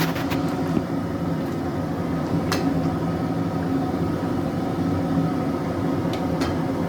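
A steady low mechanical hum, like a small appliance motor or fan running, with a few faint clicks.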